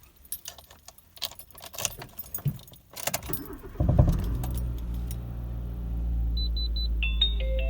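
Car keys jangling with scattered clicks, then a Nissan March's engine starts about four seconds in and settles into a steady idle. Short electronic beeps and tones sound near the end.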